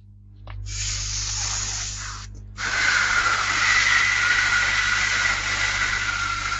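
A man hissing forcefully through his mouth in two long breaths: a shorter hiss, a brief break about two seconds in, then a longer, louder hiss with a faint whistling tone in it.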